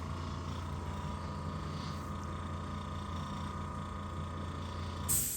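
An electric motor running steadily with a low hum, which stops with a brief clatter about five seconds in.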